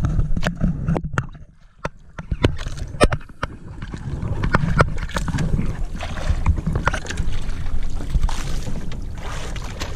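Water rushing along the hull of a moving outrigger fishing boat, with wind buffeting the microphone. Sharp knocks and clicks come during the first few seconds.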